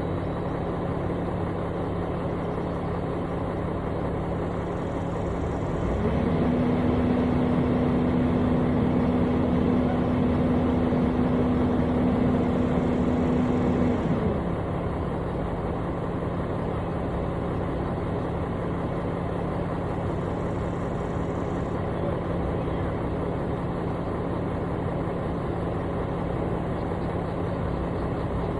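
Construction machine's engine running steadily, then speeding up about six seconds in, holding higher and louder for about eight seconds before settling back to its lower steady speed.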